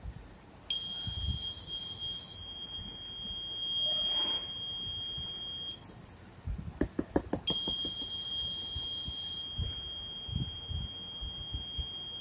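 Piezo buzzer on an Arduino earthquake-detector shield sounding a steady high-pitched tone, twice, each about five seconds long with a short gap between: the earthquake alert, set off when the accelerometer's vibration reading crosses the limit set in code. Low knocks are heard throughout, with a quick run of taps in the gap.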